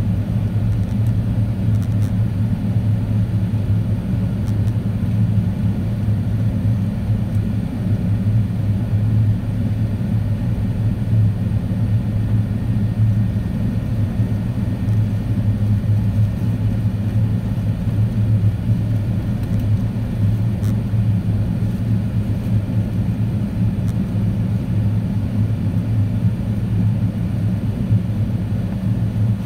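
Steady low rumble of jet engines and airflow heard inside the cabin of an Airbus A380 in flight, the Engine Alliance GP7200 turbofans running evenly in the climb after takeoff.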